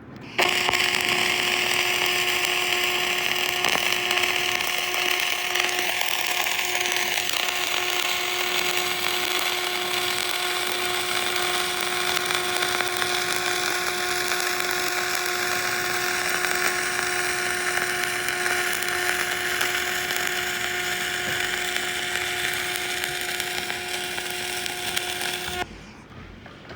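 A power tool running steadily, a constant whine over a hiss. It switches on abruptly just after the start and cuts off about a second before the end.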